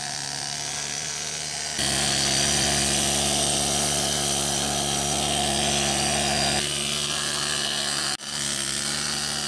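Pneumatic needle scaler hammering against the cast steel turret of a T-54 tank, stripping old paint and primer. It runs steadily, gets louder about two seconds in, changes again near seven seconds and cuts out for an instant about eight seconds in.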